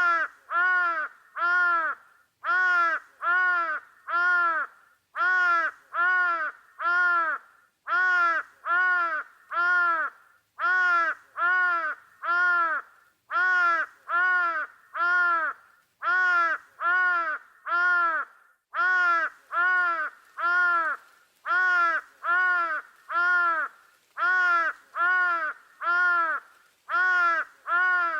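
A bird calling over and over: short, arched calls, about two a second, in runs of three to five with brief pauses between.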